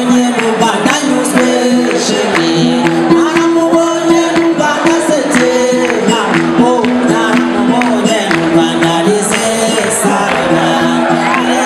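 A man singing live, accompanied by a plucked long-necked string instrument holding steady low notes, over a steady beat of sharp taps.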